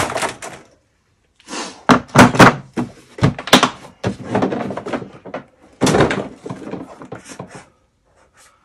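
Hard plastic tool case being shut and moved about, with a series of knocks, thuds and rattles. The loudest come about two to three and a half seconds in, and another cluster follows around six seconds.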